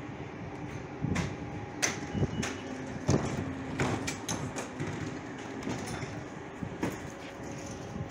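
Two coupled Calgary C-Train Siemens-Duewag U2 light rail cars standing at the platform: a steady low background with a run of sharp clicks and knocks from the cars, the loudest a little after three seconds in.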